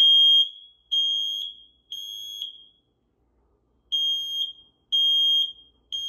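Smoke alarm sounding its temporal-three evacuation signal: three high-pitched beeps of about half a second each, a pause of about a second and a half, then three more.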